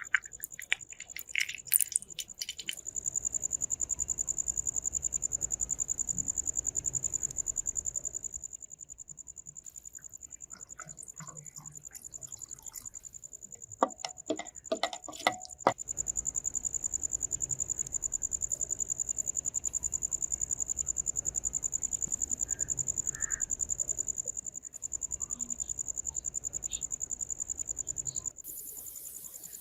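A steady, high, rapidly pulsing trill typical of a cricket. It is joined by scattered sharp clicks and knocks in the first few seconds and again about halfway through.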